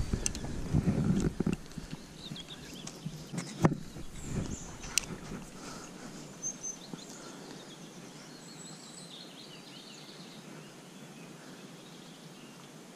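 Quiet lakeside ambience with small birds chirping faintly. A low rumbling noise on the microphone in the first second or so, and two sharp clicks a few seconds in.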